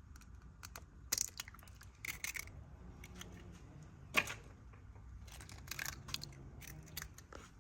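Eggs being cracked and opened over a bowl: light, scattered shell clicks and crackles, with one sharper crack about four seconds in.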